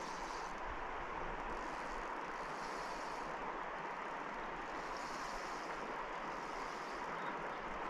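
Steady rush of fast-flowing river water running through a riffle.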